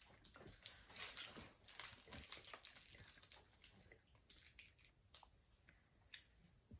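Faint, scattered crunches and wrapper crinkles as Kit Kat wafer bars are bitten and chewed, mostly in the first half.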